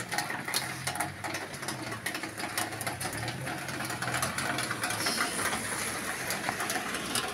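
Domestic cat purring steadily close up while being stroked, with a light crackling rustle of a hand moving over its fur.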